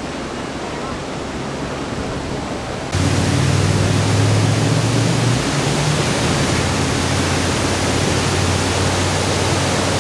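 Floodwater pouring over a ledge into a lower pit, a steady rushing gush. About three seconds in it jumps suddenly louder, with a low steady hum beneath the rush.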